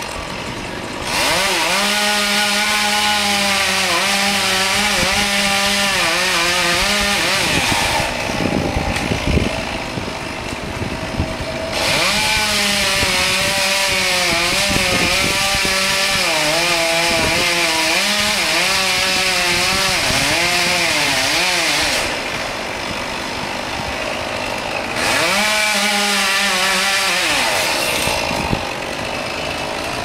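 Chainsaw cutting into the tree in three long runs, its pitch wavering and sagging as the chain bites into the wood, then dropping back between cuts.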